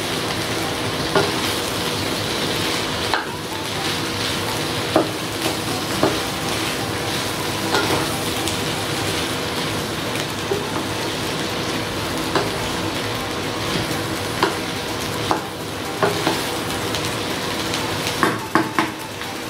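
Sliced ivy gourd (coccinia) sizzling steadily in hot oil in a frying pan on low heat, while a spatula stirs through it. Scattered short clicks are the spatula scraping and knocking against the pan.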